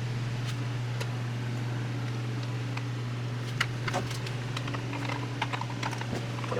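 Scattered light clicks and taps of small chainsaw parts being handled and fitted together by hand, over a steady low hum.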